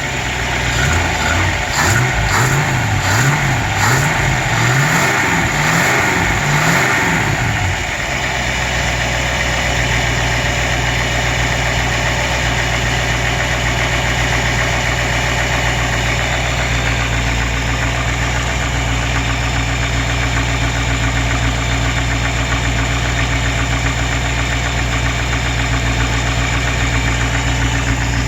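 Small-block Chevrolet V8 engine blipped up and down six or seven times, then settling to a steady idle about eight seconds in. It carries a persistent knock that the owner suspects is rod knock.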